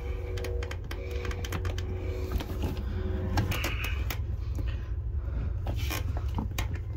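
Hands pushing and twisting a brass SharkBite push-to-connect fitting onto a pipe end: scattered small clicks and scrapes of metal and plastic over a steady low rumble.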